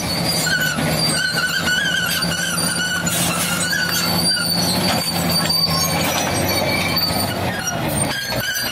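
Caterpillar D6T bulldozer's diesel engine running steadily under load while the machine pushes through sandstone rock, with high, wavering steel squeals and grinding and scattered knocks of rock against the blade and ripper.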